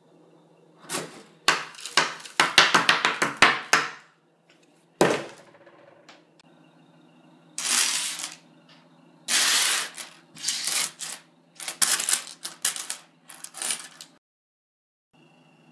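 Dry spaghetti cracking and snapping under a knife in a rapid run of sharp cracks, then coins dropped in several handfuls, clattering and jingling together.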